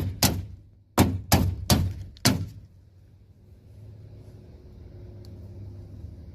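Sharp metallic knocks of a hand tool used as a makeshift hammer, tapping the inside door-handle clip: about seven strikes in the first two and a half seconds, then they stop.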